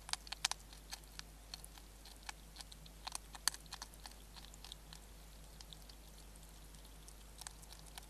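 European hedgehog eating from a feeding dish: irregular crunching chews and clicks, a quick cluster at the start and another about three seconds in, then sparser.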